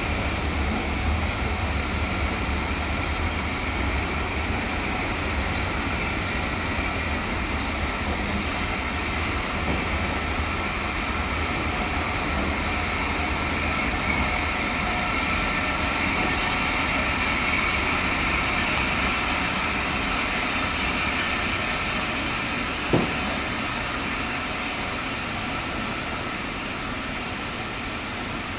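Railway passenger coaches rolling slowly past on the track: a steady rumble of wheels on rail with a high, steady squeal over it. A single sharp knock comes a little over three-quarters of the way through, and the sound then eases off slightly.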